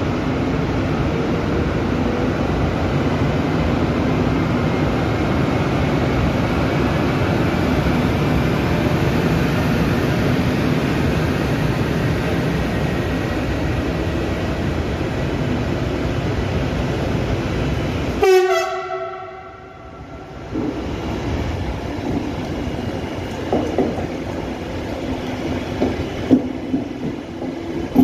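Passenger coaches rolling past on the adjacent track, a steady wheel-and-rail noise for about 18 seconds. Then comes a short falling tone, and the rolling goes on more quietly with scattered clicks of wheels over rail joints.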